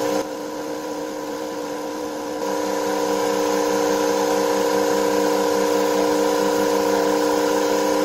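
A DC motor belt-driving a washing-machine universal motor running steadily, a hum with a whine of several fixed pitches. About two seconds in it grows louder and more tones join in.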